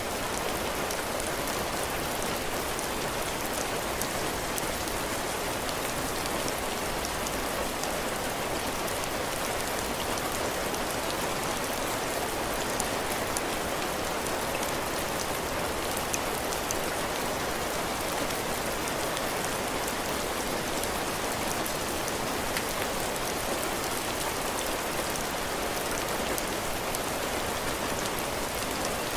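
Heavy rain falling steadily on a cabin porch, drops hitting the roof and floor, with many small drop ticks through the steady hiss.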